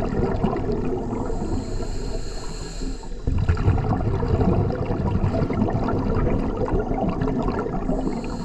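Scuba diver's regulator breathing, heard underwater through the camera housing: a hissing inhale from about one to three seconds in, then a long stream of exhaled bubbles.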